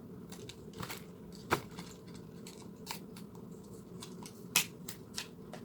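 Clicks and taps of a plastic eyeshadow palette and its packaging being handled, the two sharpest about one and a half and four and a half seconds in, over a steady low hum.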